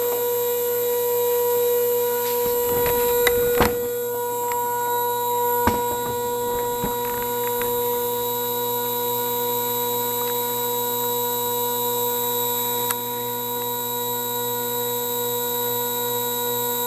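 Stepper motors of a home-built CNC hot-wire foam cutter running a cut program, giving a steady humming whine of one pitch, with a few faint clicks.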